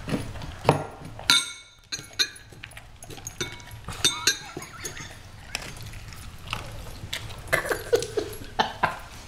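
Dogs at a food bowl: scattered clinks and knocks against the bowl and jingles of collar tags, a few of them ringing briefly.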